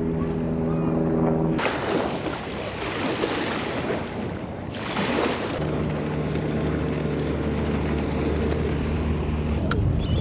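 Boat motor running with a steady hum, interrupted for a few seconds by a loud rush of wind and water noise.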